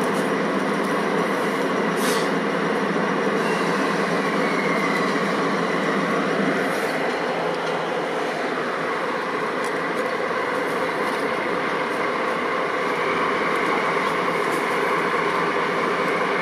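Two DD51 diesel-hydraulic locomotives, coupled as a double-header, running their diesel engines in a steady drone. The engine pitch shifts about halfway through as they start to pull the freight train away.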